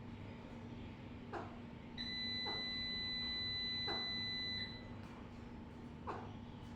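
A steady high-pitched beep held for about two and a half seconds, starting about two seconds in, with four short falling chirps around it.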